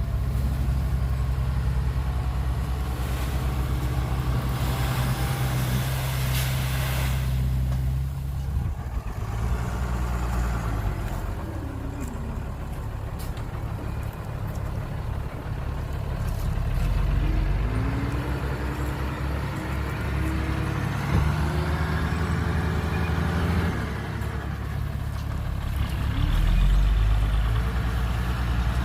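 Heavy truck's diesel engine running, its pitch shifting as it revs up and down, with a short burst of hiss about six to seven seconds in.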